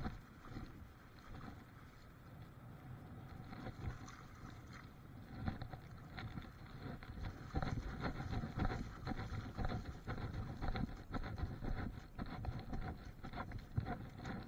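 Small fishing boat's motor running steadily, with irregular knocks and clatters of gear being handled on deck; the knocks come thicker and louder in the second half.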